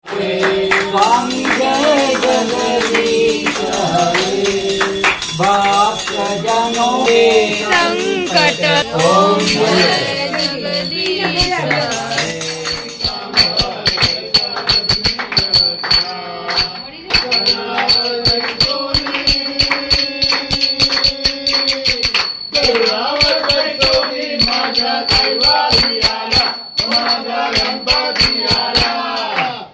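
Hindu devotional aarti to Ganesh, sung by a group with rhythmic hand clapping. A steady clapped beat comes in strongly about halfway through.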